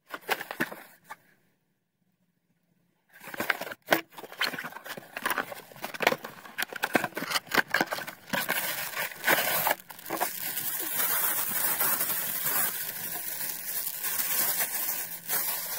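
Packaging of a camera grip being opened and handled: cardboard box and wrapping rustling and crinkling, with many sharp clicks. A short burst in the first second, a pause of about two seconds, then continuous rustling that settles into a steadier hiss from about ten seconds in.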